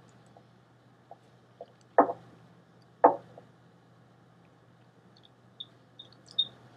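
Low steady hum with two short knocks about a second apart. Faint light scratching of a pencil sketching on paper comes in near the end.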